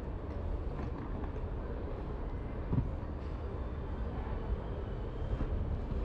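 Supermarket ambience: a steady low rumble with one brief thump a little under three seconds in.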